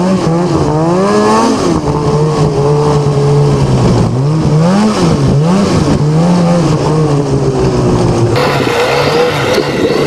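Snowmobile engine running as the sled rides a trail, its pitch rising and falling again and again as the throttle is worked. About eight seconds in the sound changes suddenly, as the audio switches to another sled's engine.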